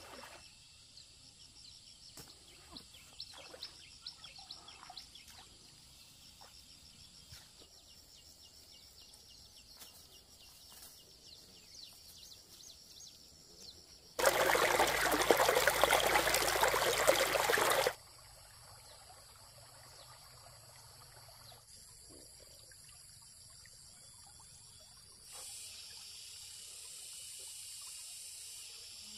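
Water trickling with light splashes, then a loud rush of water lasting about four seconds in the middle that starts and stops suddenly.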